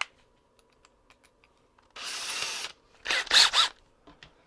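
Power drill being readied with a freshly chosen bit: a click and light handling ticks, then about two seconds in a short rushing burst, and a second later a few quick whirring bursts of the drill motor spinning up and down.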